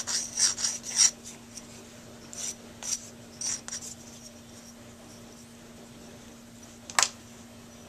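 The back of a sheet of sandpaper on a sanding stick rubbed in short strokes across the tip of a Silverite metal Dukoff saxophone mouthpiece, giving it a final polish. There is a quick run of strokes at the start, a few more a couple of seconds later, and a single sharp click about seven seconds in.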